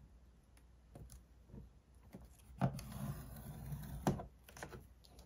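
Pointed plastic scoring tool dragged along the groove of a scoring board, pressing a score line into a sheet of paper. Faint scratching, with a louder scrape lasting about a second and a half midway and a few light clicks.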